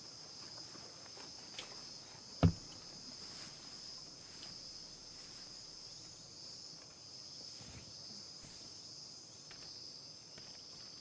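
Steady, high-pitched chirring of insects across a farm field. About two and a half seconds in there is a single sharp thump.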